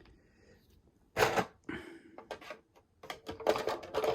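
Small plastic clicks and clatters from an RC monster truck being handled, its shocks pressed down and allowed to rebound, with a run of quick clicks near the end.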